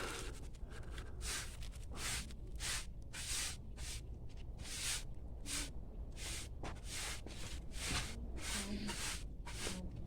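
A person blowing short, quick puffs of breath onto a smouldering ember in damp tinder, about two puffs a second, to coax it into flame.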